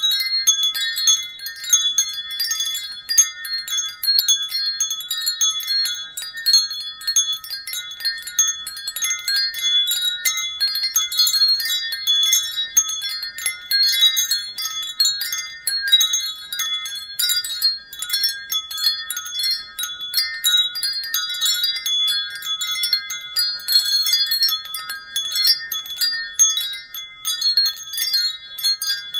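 Wind chimes ringing continuously, high-pitched tones struck over and over and overlapping without a pause.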